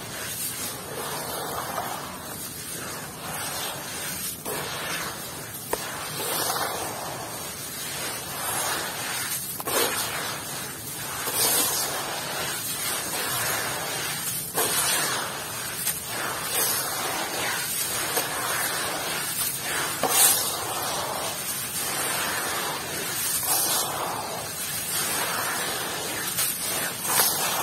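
Wet, gritty crumbles of a soaked block being squeezed by hand and dropped back into a plastic tub of water, handful after handful: a continuous wet crunching and spattering with a sharper crunch every second or two.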